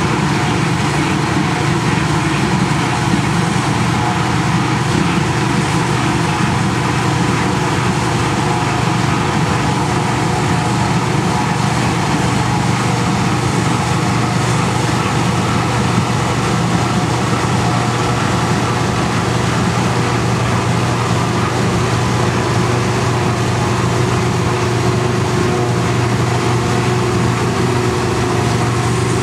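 New Holland FX450 self-propelled forage harvester working at full load, its engine and chopper giving a steady, unbroken drone as it cuts and blows wholecrop wheat, with a tractor running alongside.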